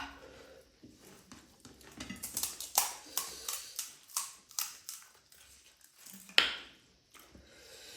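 Crisp panipuri shells crunching as they are bitten and chewed: a run of short, sharp crackles, then one louder burst of noise a little before the end.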